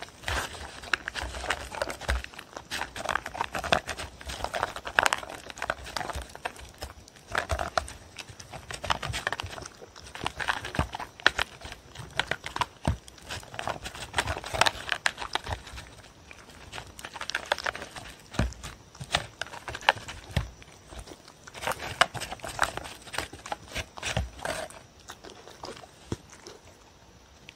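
A dog crunching dry kibble from a paper bowl, sharp irregular crunches coming in clusters, with the paper bowl crinkling under its muzzle. The crunching thins out near the end.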